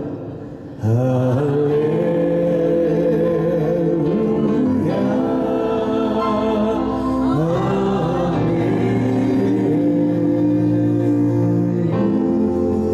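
Music: slow singing over sustained instrumental backing, picking up again after a short dip just under a second in.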